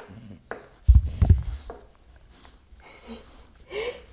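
Close-up handling sounds of a dog being petted as it lies on the floor: a few dull low thumps about a second in, light rustling, and a short pitched vocal sound near the end.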